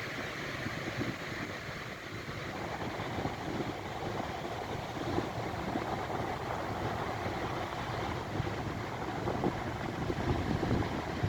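Wind buffeting the microphone: a steady, rough rumbling noise with no clear tone.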